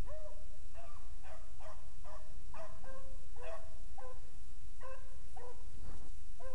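A pack of beagles baying as they run a rabbit's scent line. Several hounds give tongue in repeated, overlapping calls, about two or three a second.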